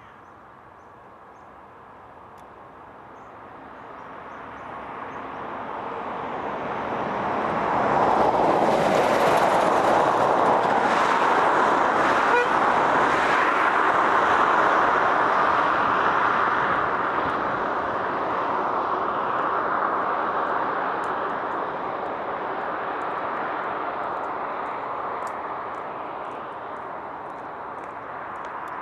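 Traffic passing on a busy main road: a lorry and cars go by in a stream. Their tyre and engine noise swells over several seconds, is loudest around a third of the way in, then slowly fades.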